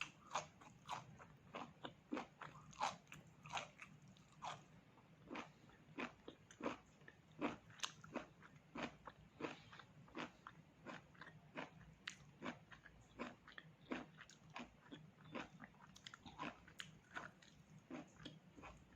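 Mouth noises of someone chewing pork close to the microphone: a steady run of short, sharp crunching and smacking clicks, about two or three a second, faint.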